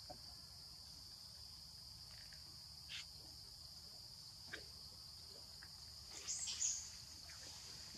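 A steady high-pitched chorus of crickets, with a few faint clicks and a short squeak about six seconds in.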